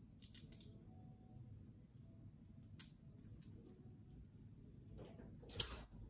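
Faint handling sounds: light clicks and ticks of a small tool and fingertips pressing scale tape down onto a hard chrome crankbait held in a clamp, with one louder brief scrape a little over five seconds in.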